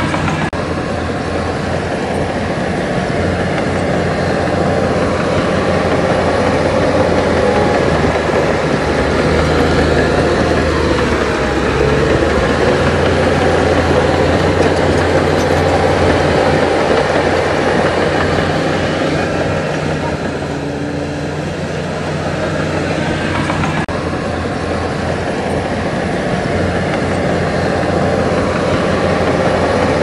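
Heavy diesel earthmoving machinery running steadily, its engine level swelling and easing slowly over several seconds.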